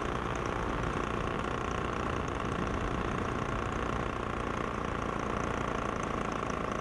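Paramotor engine running steadily at a constant throttle, a continuous drone that does not rise or fall.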